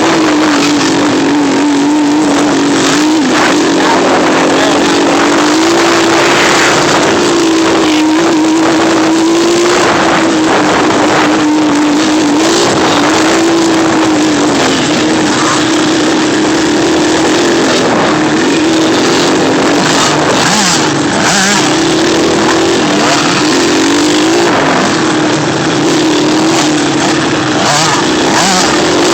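Off-road vehicle engine running steadily while riding, its pitch rising and falling a little with the throttle, over a constant rushing noise.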